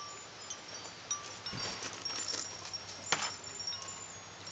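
Cat trapped in a cage trap making two short harsh sounds, about one and a half and three seconds in.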